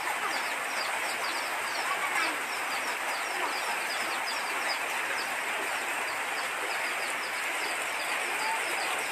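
Muddy floodwater rushing steadily, with many birds chirping over it.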